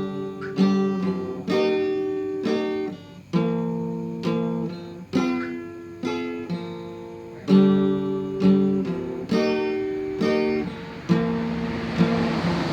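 Acoustic guitar strumming chords, a fresh strum roughly every second with each chord ringing on between strums.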